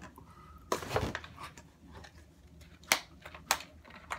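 Handling noises from small objects: a short rustle about a second in, then two sharp clicks about half a second apart near the end.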